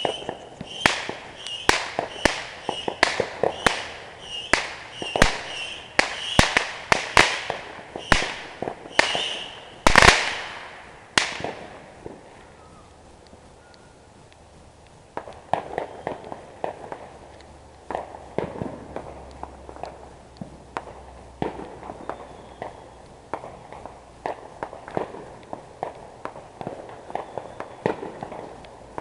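Consumer fireworks going off: a rapid string of sharp bangs for about ten seconds, ending in the loudest bang, then a brief lull and scattered fainter pops for the rest.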